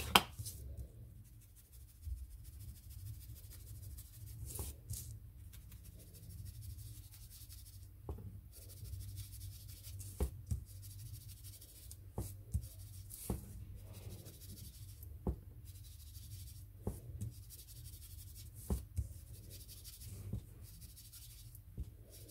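Foam ink dabber scuffing and dabbing along the edges of a sheet of card stock as distress ink is applied. The rubbing is faint, with scattered light taps.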